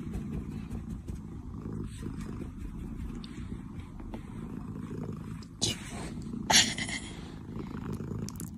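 A very young kitten purring steadily, a low rumble, with two short louder rustling noises about two thirds of the way in.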